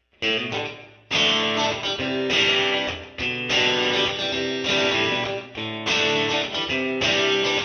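Intro music: strummed guitar chords, changing about once a second after a short opening chord.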